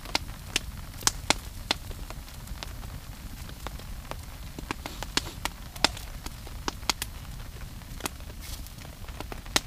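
Birch-log long fire crackling, with irregular sharp pops over a steady low rumble.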